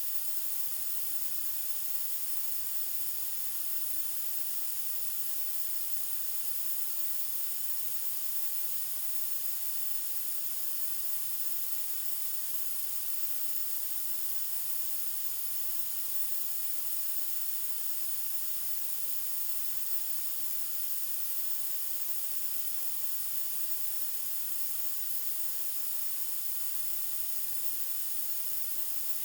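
Generated white noise: a steady, unchanging hiss, brightest in the high treble.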